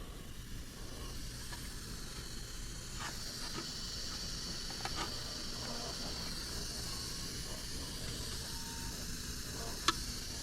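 Steady hiss of compressed air, growing a little louder about a second in, with no whistle tone sounding. There are a few faint clicks and a sharper tick near the end.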